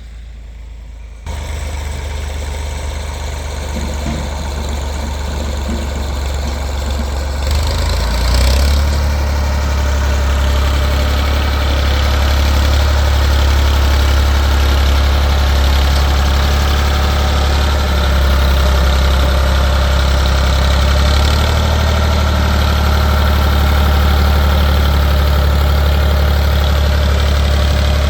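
Tractor engine running steadily while the tractor pulls a box blade, a strong low drone that comes in suddenly about a second in and grows louder over the next several seconds.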